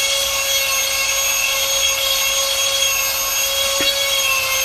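Steady whooshing of a fan or blower motor running at constant speed, with several fixed whining tones over the rush of air and one faint tick near the end.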